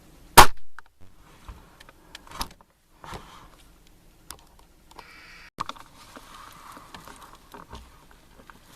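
A single shot from a break-barrel air rifle, a sharp crack about half a second in that dies away quickly. Quieter clicks and knocks of the rifle being handled follow, with a short rasping stretch and a click a little past the middle.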